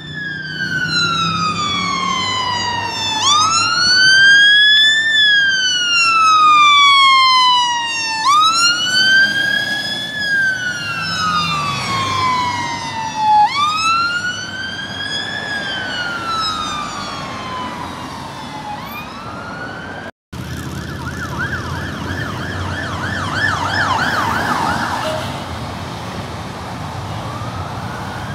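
Fire engine's electronic siren on a slow wail, sweeping up and down about every two and a half seconds over low road traffic. After a brief break about two-thirds through, a siren switches to a fast yelp for a few seconds, then starts a slow rise again near the end.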